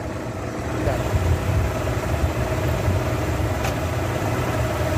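Car engine idling with the air conditioning switched on at maximum, heard from the open engine bay: a steady low rumble with a steady whine above it. The AC is blowing warm instead of cold, which the owner puts down to a low refrigerant charge.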